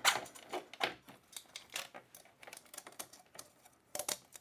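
Light metallic clicks and knocks, irregular and several a second, as a Shimano Dura-Ace crankset is handled and fitted onto a bicycle's bottom bracket, with a sharper cluster of clicks about four seconds in.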